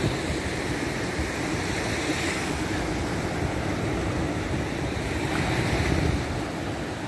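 Surf washing onto a beach, with wind buffeting the microphone.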